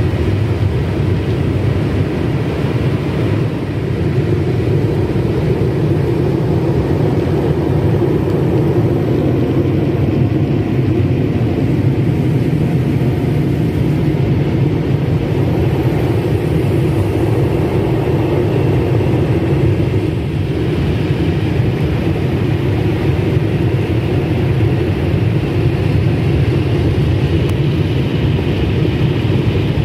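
Car wash air dryer blowers running on the car, heard from inside the cabin: a loud, steady rush of air.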